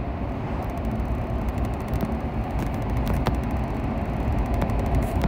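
Car running, heard from inside the cabin: a steady low engine and road noise, with a few faint clicks.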